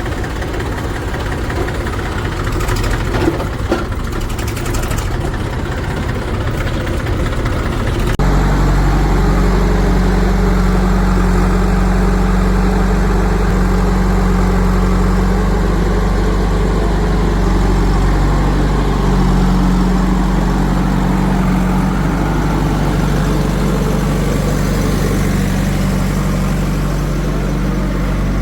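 Heavy diesel engine of a tractor or backhoe loader running. About eight seconds in, the sound changes abruptly to a steady, deeper engine drone.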